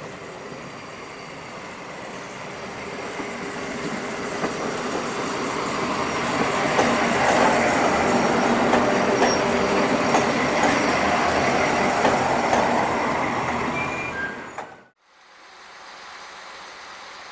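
Two SNCF BB 67400 diesel-electric locomotives, working together at the head of a Corail train, pass close by. Their Pielstick V16 diesel engines run with a steady drone that grows as they approach and is loudest as they go past, with clicks of wheels over rail joints. About 15 seconds in, the sound cuts off abruptly to a quiet background.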